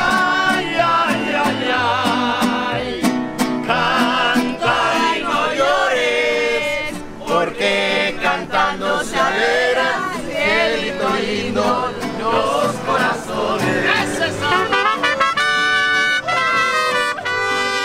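Music with singing voices over brass instruments; the voices carry a wide, wavering vibrato.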